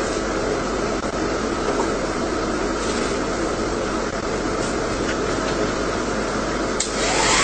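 Hair dryer blowing steadily, a constant whooshing rush over a low motor hum. It gets louder and brighter just before the end.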